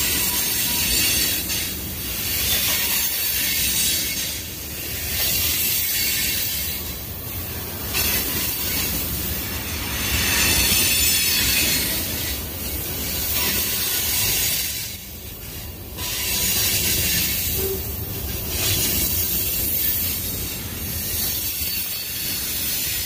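Freight cars of a Union Pacific manifest train, mostly tank cars, rolling past close by: a steady wheel-on-rail rumble under a high hiss that swells and fades every second or two as each car goes by.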